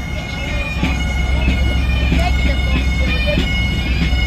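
Bagpipes playing a tune: high chanter notes stepping from one pitch to the next with quick grace notes, over a steady drone. A heavy low rumble runs underneath.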